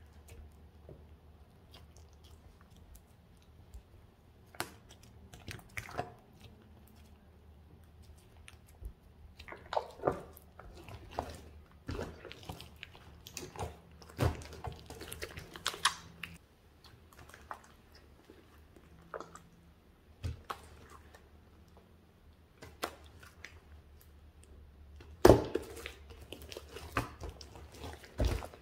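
Large batch of glossy slime squished and stretched by hand, giving irregular wet clicks, squelches and small air pops, the loudest pop near the end.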